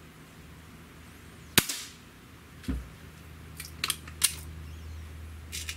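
Beeman R7 spring-piston breakbarrel air rifle firing a .177 pellet: one sharp crack about a second and a half in, then a dull thump. A couple of seconds later come several sharp clicks ending in a loud metallic snap as the barrel is broken open to cock the rifle, with a few softer clicks near the end.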